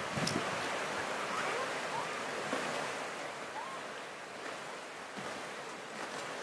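Steady rushing of flowing water with some wind, and a few faint short rising chirps over it.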